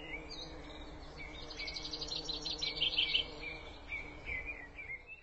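Wild forest birds calling: short whistled notes and pitch glides, with a fast run of repeated high notes in the middle.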